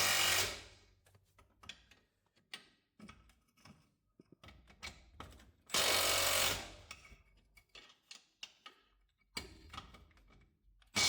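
Impact wrench running in short bursts about a second long, tightening the nuts of newly fitted ball joints, with light clicks and tool clatter between the bursts.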